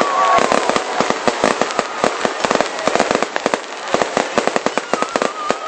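Aerial fireworks going off in a dense, irregular run of sharp bangs and crackles, several a second.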